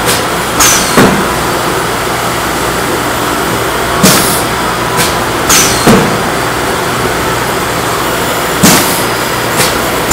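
Automatic lotus-leaf pancake machine running: a steady mechanical running noise with sharp metallic clacks in a repeating cycle. In each cycle one clack is followed about a second and a half later by a quick double clack, and the cycle repeats about every four and a half seconds.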